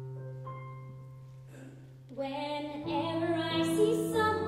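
An accompaniment chord is held and slowly fades, with a higher note added about half a second in. A little over two seconds in, a female solo voice starts singing over a new chord.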